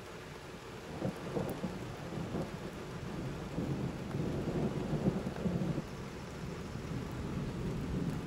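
Rolling thunder over steady rain. The low rumble swells about a second in, is loudest around the middle and cuts off suddenly at the end.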